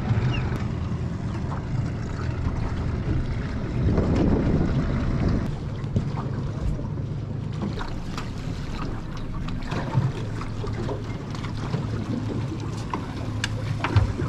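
Boat outboard motor running steadily at slow trolling speed, a low even hum, with water lapping the hull and wind on the microphone. The wash swells louder about four seconds in, and a few light knocks come near the end.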